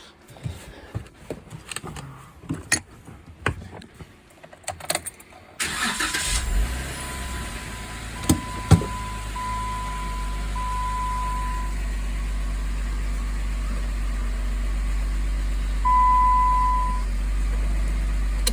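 Scattered handling clicks, then a 2013 Jeep Wrangler's 3.6-litre V6 starts about five seconds in and settles to a steady idle. An electronic chime tone sounds for several seconds after the start, two sharp clicks come close together, and a louder short beep sounds near the end.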